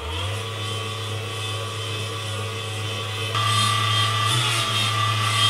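Electric stand mixer motor switched on, running steadily with its whisk beating butter, sugar and oil batter. About three seconds in it steps up to a higher speed, louder and with a higher whine.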